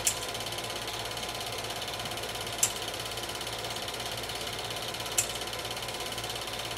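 Home-movie film projector running: a steady mechanical whir with a fast, even clatter, and a sharp click about every two and a half seconds.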